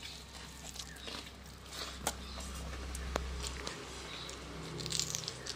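A hand mixing cooked rice and dal on a brass plate: soft squishing with a few light clicks. A low hum stops a little over halfway through.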